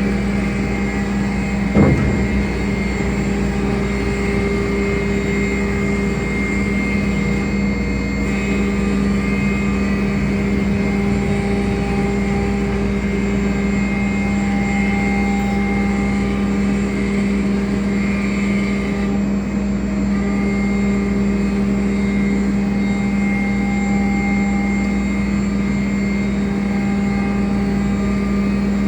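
CNC router running steadily with a constant strong hum, with one sharp knock about two seconds in.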